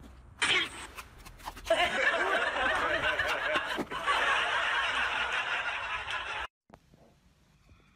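Several people laughing at once, a dense continuous laughter lasting several seconds, which cuts off abruptly about six and a half seconds in.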